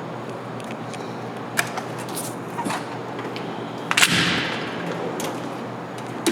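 Metal tool chest drawer shutting with a sharp clank about four seconds in, with a short sliding hiss after it; lighter clicks of tools and drawer hardware before it and another click at the end, over a steady low hum.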